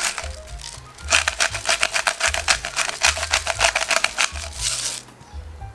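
Twist-top pepper grinder cracking black pepper onto a raw steak: rapid gritty clicking, about ten clicks a second, from about a second in until near the end. Background music with a bass line underneath.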